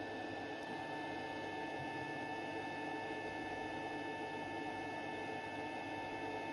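Elgoo Mars 2 resin 3D printer's Z-axis stepper motor driving the build plate down the lead screw: a steady hum with a thin, even whine.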